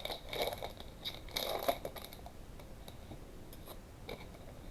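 A foil trading-card pack wrapper crinkling as the pack is opened, for about the first two seconds, then quieter handling of the cards with a few light clicks.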